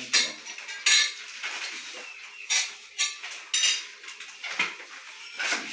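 A series of short, crisp handling noises, about six in all, as cornmeal is shaken from a plastic packet into a blender jar.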